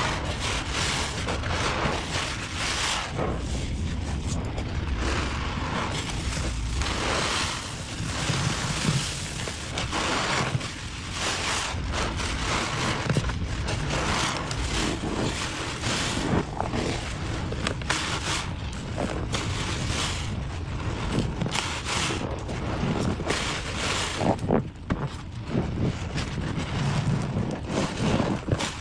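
A soaked sponge full of thick suds squeezed over and over by a gloved hand in a basin of foam: wet squelching and squishing of foam, in irregular repeated squeezes.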